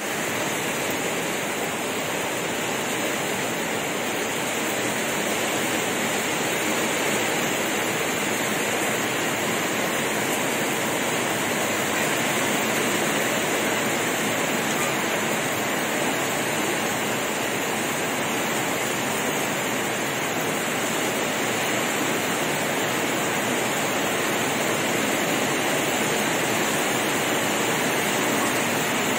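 Heavy tropical downpour: dense, steady rain falling on roofs and trees.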